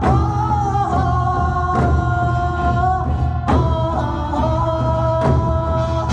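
Korean drum ensemble music: drums struck every second or two under a held, wavering melody line.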